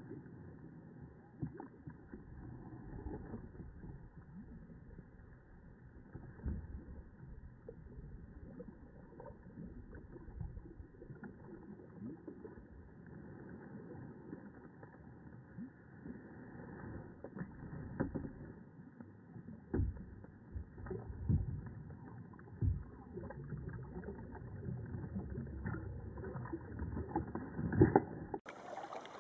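Canoe being paddled: a low wash of water noise with irregular knocks and thumps against the hull, and one loud knock near the end.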